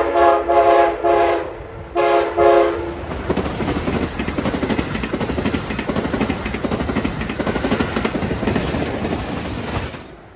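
Amtrak Acela Express trainset sounding its horn in a series of blasts, several short ones in the first second and a half and two more about two seconds in, then passing at speed with a loud rush and rapid wheel clatter that drops away near the end.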